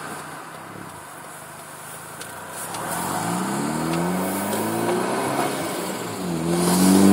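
A 2013 Hyundai Veloster Turbo's turbocharged 1.6-litre four-cylinder accelerates through a custom Magnaflow 12886 muffler exhaust, heard through the open driver's window. The first few seconds are quiet. Then the exhaust note climbs in pitch, drops at an upshift about six seconds in, and climbs again, louder.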